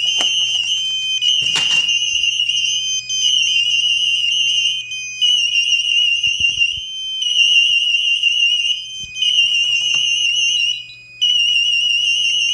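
Fire-alarm warning annunciator (Rokot-5) sounding its high-pitched warbling alarm tone in repeated bursts of about two seconds with short breaks, triggered by a manual fire call point. A brief click comes about one and a half seconds in.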